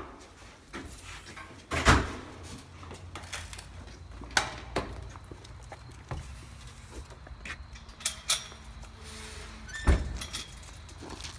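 Footsteps and the jingle of a leash clip and tags as a man walks a dog out on a leash, with a heavy door thunk about two seconds in and a clank of a metal chain-link gate near the end.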